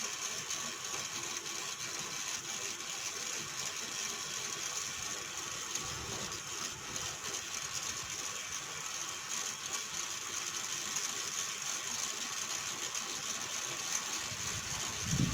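Ribbon-spool winding mechanism of a Godrej manual typewriter being turned by hand, its ratchet and pawl clicking steadily as the ribbon winds from one spool to the other.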